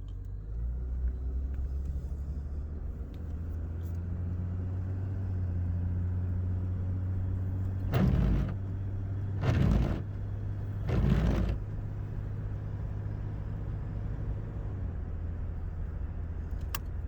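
A vehicle's engine running steadily with a low hum. Three brief, louder rushing noises come about 8, 9.5 and 11 seconds in.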